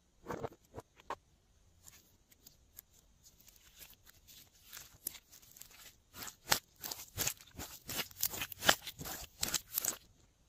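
Pink clear glossy slime with glitter mixed in, squeezed and kneaded by hand, giving sticky clicks and pops. A few come near the start; a fast, louder run of them follows in the second half.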